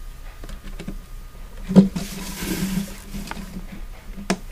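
Plastic LEGO bricks handled and snapped onto a model: light clicks and rustling, with two sharper clicks, one a little under two seconds in and one near the end.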